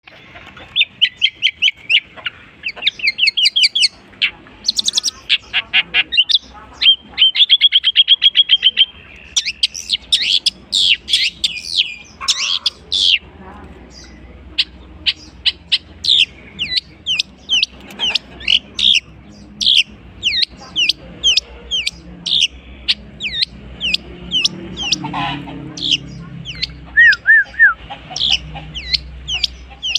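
Long-tailed shrike (cendet) singing a fast, varied song full of mimicked phrases of other birds. It opens with rapid trills and dense runs of high chirps, then settles into a long series of quick downward-sweeping whistled notes.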